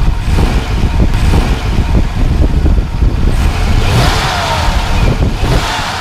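A motor vehicle's engine running loudly under throttle, with falling whines in the last couple of seconds.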